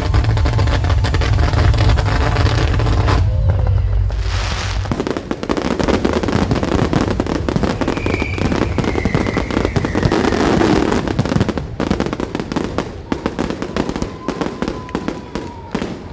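Music with a heavy steady bass for about the first five seconds, then the dense crackling of aerial fireworks, with a falling whistle twice, thinning out toward the end.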